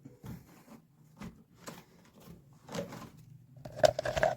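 Scattered clicks and knocks of a washing machine's shock absorber being handled and pressed into its plastic mounts on the tub, with a louder clatter of knocks near the end.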